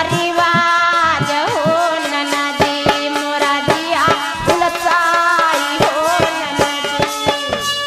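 Sohar folk-song music: dholak hand-drum strokes under a held, wavering melody line.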